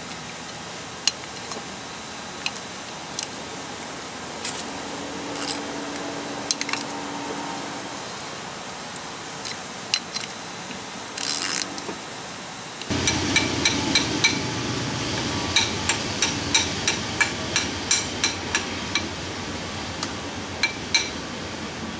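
Socket ratchet working the brake drum bolts: scattered metallic clicks and clinks. About 13 seconds in, a run of sharp, regular metal knocks starts, about three a second.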